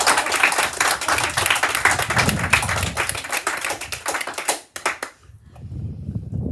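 A small group of people clapping or tapping rapidly with their hands, a dense patter of sharp claps that stops abruptly about five seconds in.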